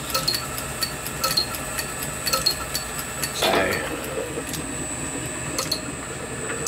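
Small vintage metal lathe running while turning a bronze bearing bar, with a steady high whine and light ticking that repeats about every half second. A brief squeal about halfway through.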